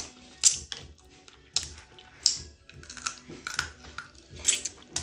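Close-miked eating sounds from picking blue crab legs: irregular sharp clicks and smacks of lips and fingers as the meat is sucked and pulled from the shells.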